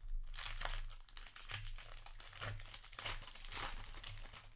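Foil Magic: The Gathering play booster wrapper being torn open and crinkled as the card stack is pulled out. Dense, irregular crackling, loudest near the start and again about three and a half seconds in.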